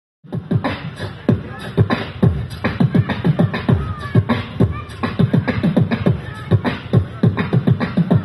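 A man beatboxing into a microphone: a fast, even rhythm of vocal kick-drum thumps and snare-like clicks, starting just after a moment of silence.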